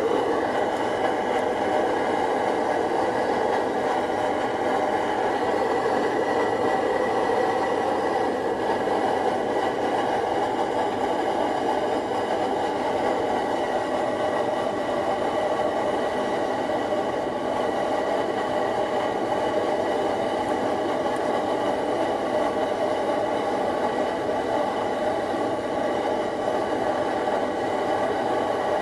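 MSR DragonFly pressurised liquid-fuel stove burning steadily under a boiling pot, a constant even rushing noise with a faint steady hum in it.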